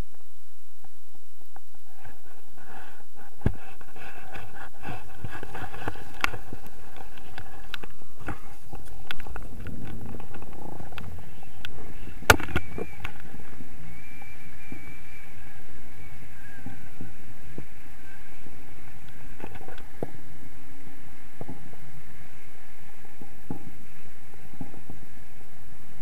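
Wind buffeting the microphone of a camera mounted on a tandem paraglider during launch and climb-out, heard as a low muffled rumble. A few sharp knocks from the harness and rigging come through, the loudest about twelve seconds in.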